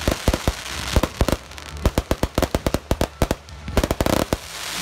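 Professional fireworks display: a rapid, uneven volley of bangs from aerial shells and cakes bursting, several a second, with a hissing crackle of sparks at the start and again near the end.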